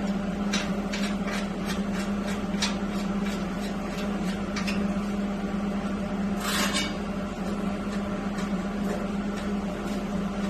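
Wrench clicking in short sharp strokes, about three a second through the first half and sparser later, as bolts are tightened, with one longer scrape of metal about two-thirds of the way in. A steady low hum runs underneath.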